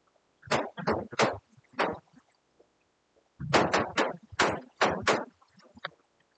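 Chalk writing on a blackboard: short scratchy taps and strokes, a few in the first two seconds, then a quicker run of about eight from about three and a half seconds in.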